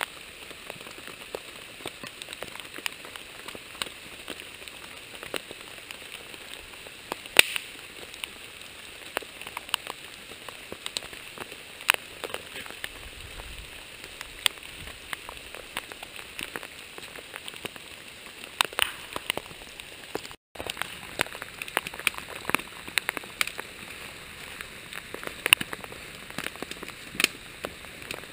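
Wood campfire burning: a steady hiss with irregular sharp pops and crackles. The sound cuts out for a split second about two-thirds of the way through.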